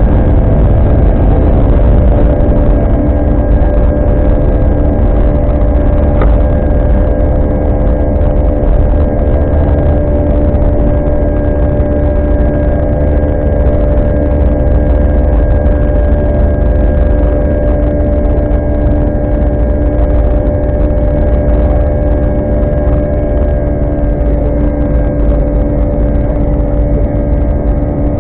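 Airbus A319 cabin noise in cruise flight: a steady deep rumble of airflow and engines, with several steady droning tones held over it.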